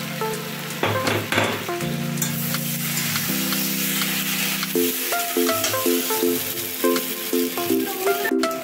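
Snake gourd and prawns sizzling in oil in a metal kadai, with a metal spatula stirring and scraping against the pan and a few clicks about a second in. Background music with a rhythmic beat plays throughout.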